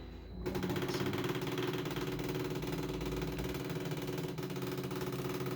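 Stepper motor driving the Y axis of a homebuilt 3D printer on a long jog move, a steady whine that starts about half a second in.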